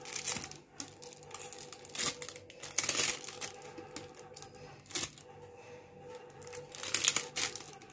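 Thin plastic bag full of batter crinkling and rustling in irregular bursts as hands twist it shut and wind a rubber band tightly around its neck, over a faint steady hum.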